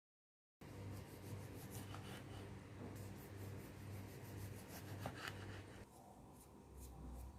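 Light scraping and rubbing of food being handled and prepared, with a few sharp clicks. It starts abruptly about half a second in and eases off near the end.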